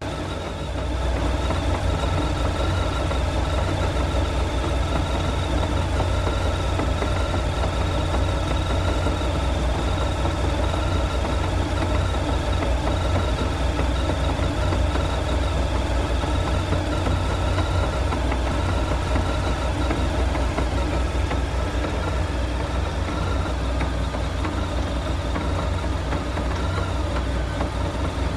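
2012 Honda VFR1200F's V4 engine running steadily, with a knock that the owner places in the shaft drive's final-drive gearbox and cannot explain, unsure whether it is normal.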